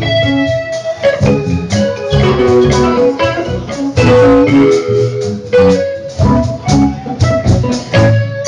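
Live band jamming in a blues-rock style: electric guitar over bass guitar, with a steady beat.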